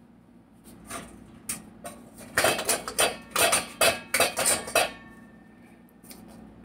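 Kitchen dishes and utensils clattering: a run of knocks and clinks starting about a second in, thickest in the middle, and stopping about five seconds in.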